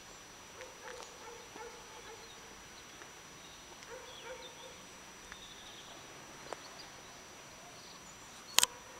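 Quiet rural outdoor ambience with faint, distant animal calls, likely farmyard fowl: a few short calls about a second in and again about four seconds in. A sharp click sounds near the end.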